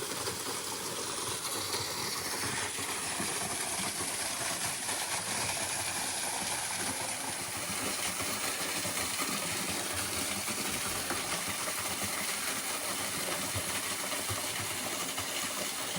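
Waterfall running steadily, a low-flow fall splashing into its pool as a continuous rush of water.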